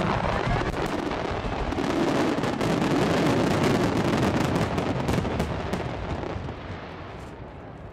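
Finale barrage of fireworks: many overlapping bursts merging into one continuous rumble, with dense crackling on top, dying away over the last two seconds or so.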